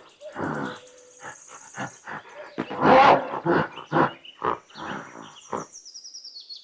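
A gorilla giving a series of short, harsh grunts and roars, loudest about three seconds in, with quicker, shorter calls after. A bird chirps in the background near the end.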